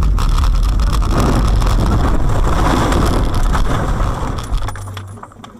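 A car leaving a snowy road and rolling over, heard from inside the cabin: a loud continuous rumble full of knocks and clatter from the impacts. It dies away sharply about four and a half seconds in.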